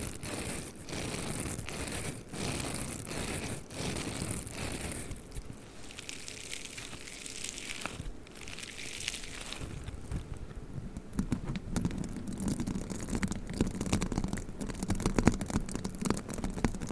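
Hair roller handled close to the microphone, giving scratchy, rustling strokes. These soften about five seconds in and turn to lower, crackly rubbing in the second half.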